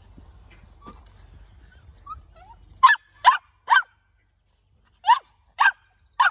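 Young puppies barking: six short, sharp barks in two groups of three, starting about three seconds in, after a few faint whimpers.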